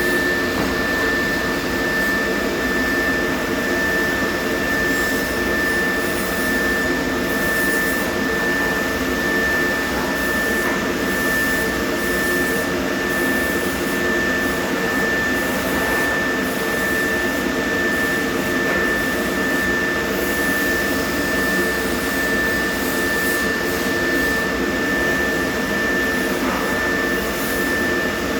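Steady mechanical running noise with a constant high-pitched whine on top, unchanging throughout.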